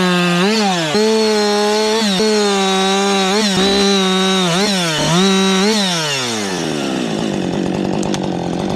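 Two-stroke chainsaw running at full throttle, its pitch dipping and recovering several times as the chain bites into wood, then dropping back to idle about six seconds in.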